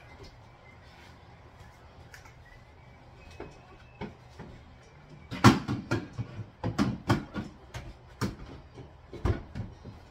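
A run of sharp knocks and clatters from a plastic whelping box as a person gets up and moves about inside it, starting about halfway through; the first knock is the loudest, and several more follow over the next four seconds.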